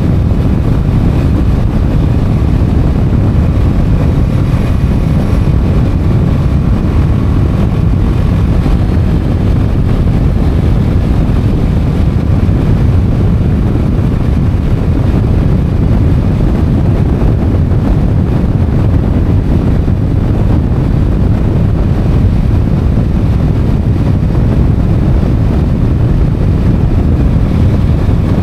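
Motorcycle under way at road speed: steady, heavy wind rumble on the microphone over the engine and road noise.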